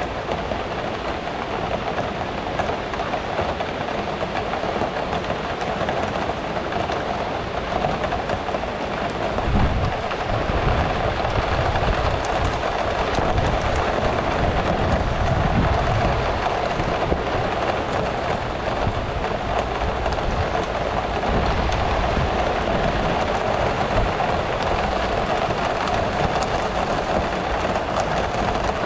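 Steady rain falling. About ten seconds in, a low rumble swells up beneath the rain and lasts for several seconds.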